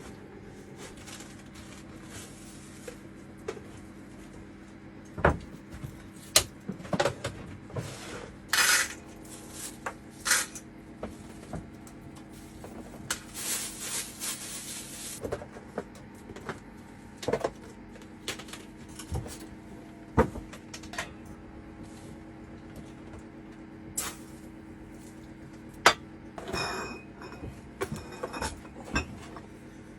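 Scattered knocks, clicks and clinks of dishes and food containers being handled, with brief rustling noises about a third and halfway through, over a steady low hum.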